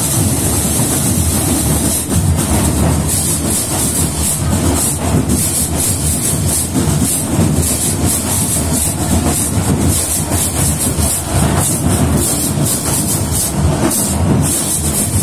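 Marching band percussion playing a repeating rhythm over a loud, noisy crowd, the sharp cymbal-like strikes setting in about two seconds in.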